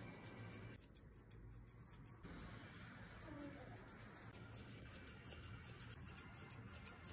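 Curved grooming shears snipping through a dog's fluffy fur in a quick, faint run of crisp snips, several a second.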